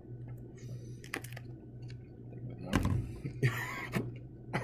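Mouth sounds of people chewing bites of raw jalapeño pepper: soft breathing, small lip and tongue clicks, and a short throaty sound about three seconds in, over a steady low hum.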